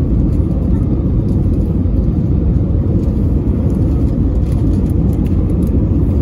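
Steady low rumble of an Airbus A320-200 in flight on its landing approach, engine and airflow noise heard inside the cabin from a window seat over the wing.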